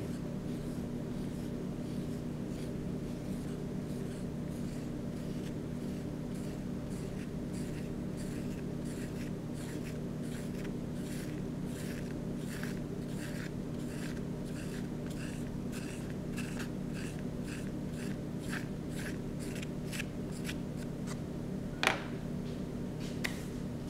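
Paintbrush bristles stroking on paper in short, quick strokes, two or three a second, starting about a third of the way in, over a steady low hum. One sharper tap near the end.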